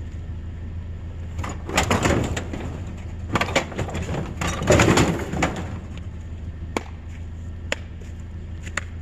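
Three bursts of rustling and clattering, then a few single sharp clicks, over a steady low hum.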